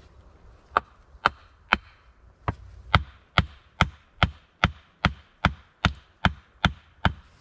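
A tool striking wood in quick, even blows: about fifteen sharp knocks, settling into a steady two and a half strikes a second.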